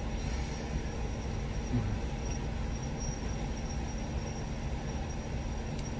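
Steady low rumble of background noise with a faint, steady high-pitched whine running through it, and a faint click near the end.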